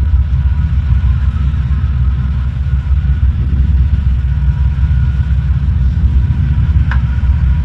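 Off-road 4x4's engine running with a steady low rumble, with a brief click near the end.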